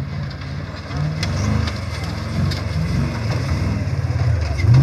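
Off-road rock-crawling buggy's engine revving up and down in repeated surges as it climbs a rocky slope, with a few sharp clicks over it.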